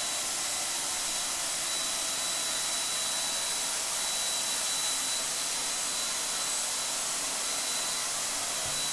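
Electric paint sprayer's turbine blower running steadily as paint is sprayed onto a ceiling: an even blowing hiss with a thin high whine on top.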